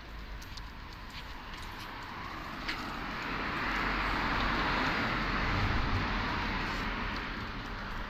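A car passing by: a rushing noise that swells from about two seconds in, is loudest midway and fades toward the end.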